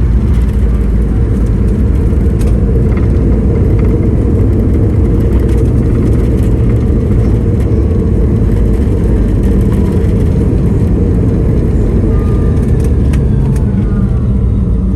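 Steady, loud rumble inside the cabin of a Boeing 717 airliner during landing: the noise of its rear-mounted Rolls-Royce BR715 turbofans mixed with wheel and airframe rumble on the runway. Faint gliding whines rise above it near the end.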